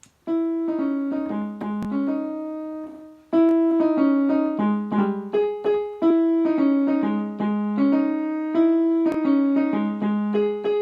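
Piano-like keyboard music: a short melody of quick notes, played as the same phrase four times, with the last note held and fading out.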